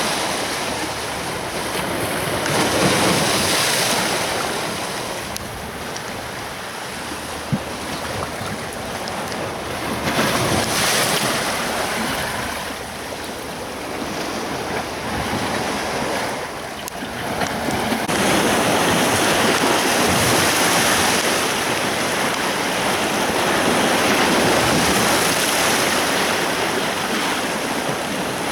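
Sea surf washing on a beach: broad rushing noise that swells and ebbs as waves come in, growing louder and more constant in the last third, with wind buffeting the microphone.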